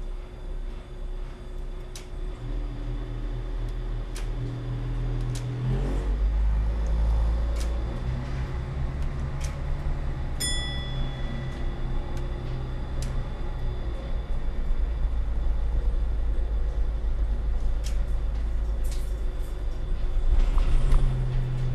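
Y-train diesel railcar running, heard from the driver's cab: a steady low engine and rail rumble with scattered clicks. The engine note changes about six seconds in and the rumble grows louder, and a short high tone sounds briefly about ten seconds in.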